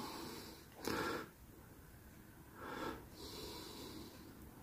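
Quiet nasal breathing close to the microphone: two short puffs of breath about two seconds apart, then a fainter one.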